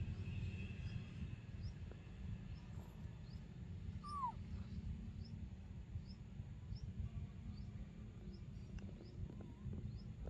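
A single short squeak that falls in pitch, about four seconds in. It is backed by faint high chirps repeating about twice a second and a steady low rumble.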